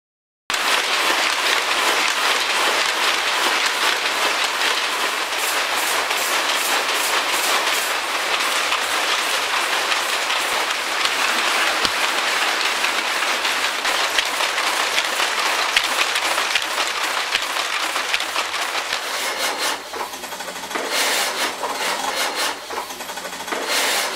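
A weaving shed full of old shuttle looms running, a dense fast mechanical clatter that starts abruptly. Near the end the steady din breaks into separate rattling bursts.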